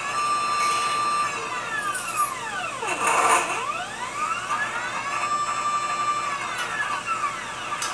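CNC wire bender's drive motor whining as it bends 5/32-inch piano wire. The pitch holds steady, falls as the motor slows to a stop about 3 s in, then rises again as it speeds up, holds, and falls once more near the end.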